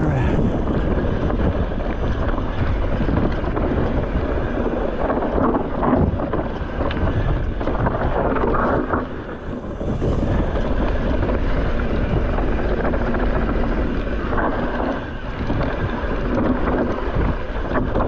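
Wind rushing over a handlebar-mounted camera's microphone as a mountain bike rolls along a dirt trail, with thumps and rattles from the bike going over bumps.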